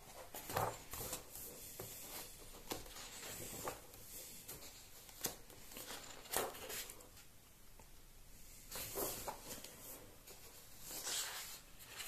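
Pages of a hardcover comic album being turned by hand: several soft paper rustles and page flips at irregular intervals.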